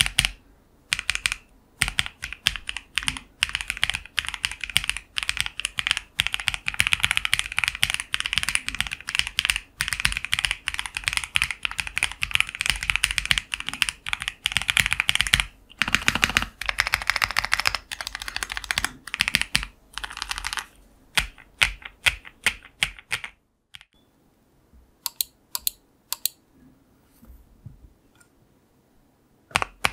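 Akko Mod008 65% custom mechanical keyboard with lubed Akko CS Silver linear switches on a polycarbonate plate being typed on for a sound test. Fast continuous typing runs for about twenty seconds, with a deeper, heavier stroke partway through. It then slows to a few separate keystrokes.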